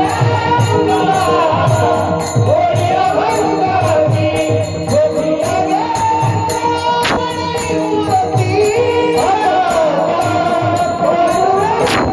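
Warkari bhajan music between sung lines: a mridang keeps a steady beat, small hand cymbals (taal) chime in an even rhythm, and a held melody with sliding notes carries on above them.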